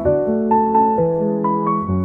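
Background music: a gentle piano melody, notes changing every quarter to half second over held chords.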